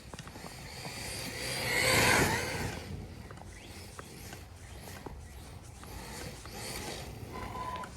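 Arrma Mojave 4S RC car driving through snow, its tyres churning a hiss that swells about two seconds in and then fades to a softer rush; the car's electric drive runs quiet in the snow, with a brief steady whine near the end.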